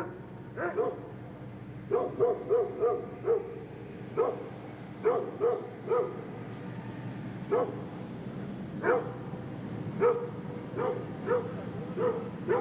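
Dogs barking in the distance: short barks, singly and in quick runs of two to four, over a steady low background hum.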